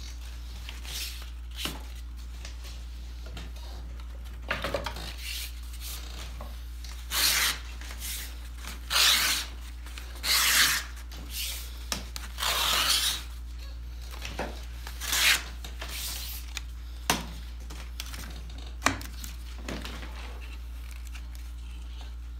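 Knife blade scraping a thin black ash splint drawn across a leather lap pad: about half a dozen short rasping strokes, each under a second, with a few sharp clicks near the end.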